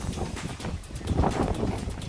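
Strong wind buffeting the microphone: an uneven, gusty rumble that rises and falls in irregular surges.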